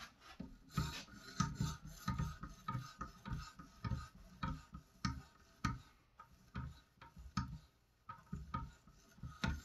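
A 4,000-grit Edge Pro Diamond Matrix stone on an Edge Pro guided sharpener's arm is stroked back and forth along a knife edge. Each stroke is a short scrape with a click, about two to three a second: light, quick polishing passes at the high-grit stage.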